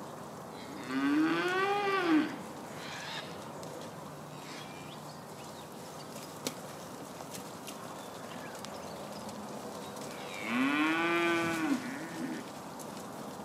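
Steers mooing twice, about nine seconds apart; each moo is one call a little over a second long that rises and then falls in pitch.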